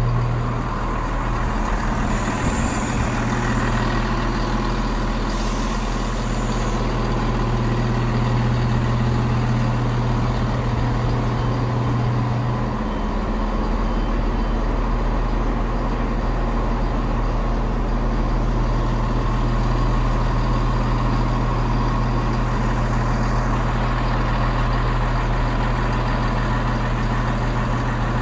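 Diesel engines of a Class 170 Turbostar multiple unit idling while the train stands at the platform: a steady low hum with a faint steady whine above it, changing slightly about twelve seconds in.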